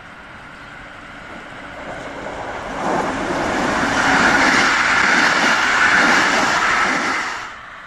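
Diesel-hauled Mitteldeutsche Regiobahn regional express train (class 223 Siemens Eurorunner ER 20 with ex-express compartment coaches) passing close by: a rumble and rolling clatter of the coaches on the track. It builds over about three seconds to a loud, steady pass-by and stops abruptly near the end.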